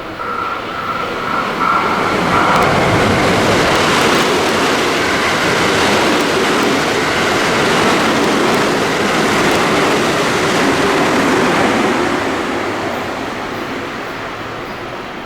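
Electric train passing at speed, its noise building over the first two seconds, staying loud for about ten seconds, then fading away.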